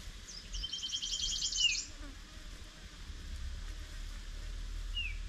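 A wild animal's high, fast-pulsing call. It runs for about a second and a half from about half a second in, ending in a downward slur, and starts again near the end.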